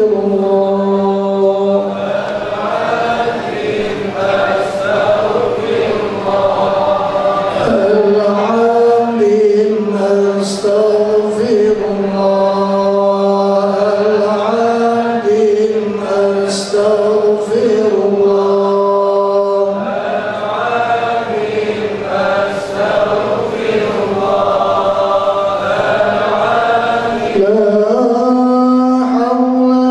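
Men's voices chanting Islamic dhikr together in a slow melodic line, with long held notes and slow changes of pitch.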